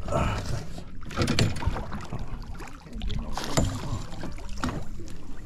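Water splashing against a small fishing boat's hull as a landing net is dipped in to scoop a hooked fish, with irregular knocks of gear on the boat and a steady low rumble.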